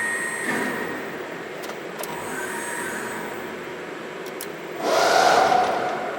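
Safan SMK servo-electric press brake running, with a louder motor whir for about a second near the end.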